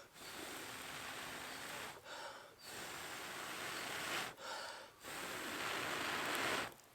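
A person blowing on glowing campfire embers to coax them into flame: three long, steady blows, each about a second and a half, with quick breaths drawn in between.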